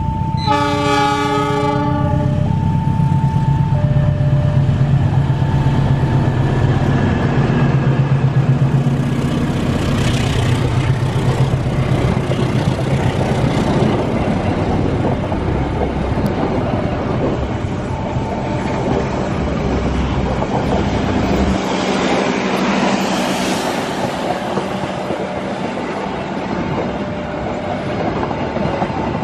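KAI diesel-electric locomotive sounds its horn for about two seconds as it reaches the crossing. Its engine then runs past and the passenger coaches roll by with steady wheel clatter on the rails. The level-crossing warning signal keeps sounding on and off throughout.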